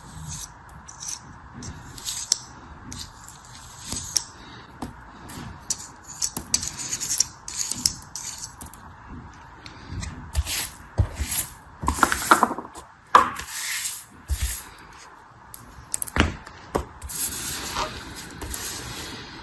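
Hands unpacking packaging: rustling, rubbing and scraping with scattered sharp clicks, loudest about two-thirds of the way through, over a steady background hiss.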